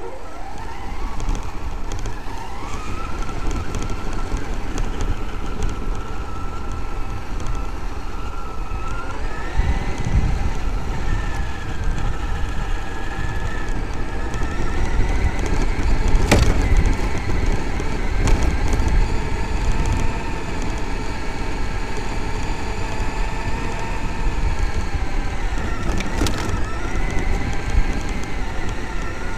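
Traxxas X-Maxx electric RC monster truck heard from on board: its brushless motor and drivetrain whining, the pitch rising and falling with the throttle, over a steady low rumble from the tyres on rough ground. Two sharp knocks, about sixteen seconds in and again near the end.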